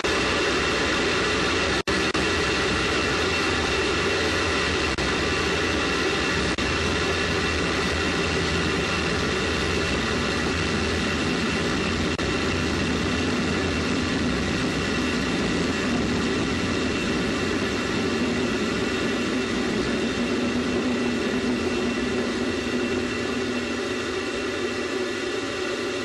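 A Space Shuttle solid rocket booster's motor burning, picked up by a microphone on the booster itself: a steady, dense roar with a whine of steady tones through it. Near the end the deep rumble thins out as the motor nears burnout.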